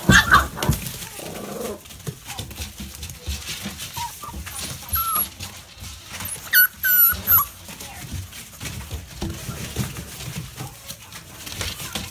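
American Bulldog puppies play-fighting: short, high-pitched yips and squeals, with a burst of three in the middle, over scuffling and thumps of paws and bodies on a tarp strewn with wood shavings.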